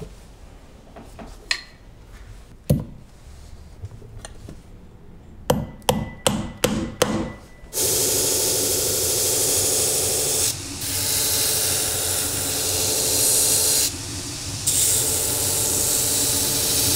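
A quick series of sharp hammer taps on a shoe, then from about eight seconds in a shoe finishing machine's spinning wheel sanding the edge of a leather heel: a steady grinding hiss over the machine's hum that drops briefly twice.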